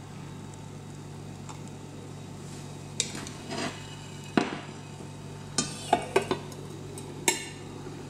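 Kitchen utensils clinking and knocking: a metal fork, a stainless saucepan and a glass plate strike each other in a few sharp clatters, starting about three seconds in and coming thickest towards the end. A steady low hum runs underneath.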